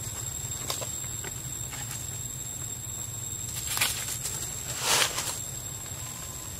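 Footsteps crunching through dry leaf litter, with two louder crunches about four and five seconds in, over a steady low hum.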